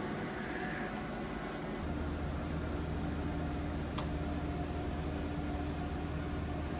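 Steady drone of running machinery. About two seconds in, a deeper hum and a faint high whine join it, and a single sharp click comes about four seconds in.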